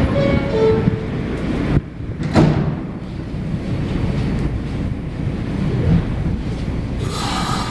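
New York City subway train running with a steady low rumble; the sound drops suddenly about two seconds in, then a brief sharp rush.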